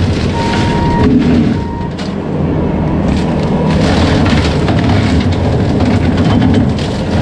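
Bobcat T650 compact track loader's diesel engine running under load while its Blue Diamond severe-duty rotary cutter chops through brush, with repeated cracking and snapping of wood.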